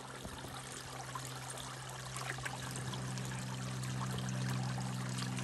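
A steady rushing noise with an even low hum underneath, slowly growing a little louder.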